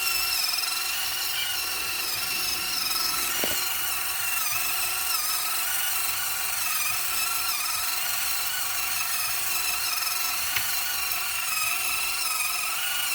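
Servo-driven gear train turning the loaded mixer drum of an RC Bruder Mack concrete truck: a steady high whine that wavers slightly in pitch.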